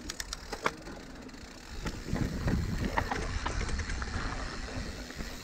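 Mountain bike rolling down a dirt trail: tyre and frame rumble with scattered knocks and rattles, a few sharp clicks in the first second, getting louder from about two seconds in.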